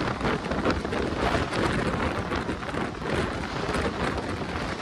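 Passenger train coaches rushing past at close range on the adjacent track, heard from the open window of a moving train: a loud, steady rush of wind with wheels clattering over the rails.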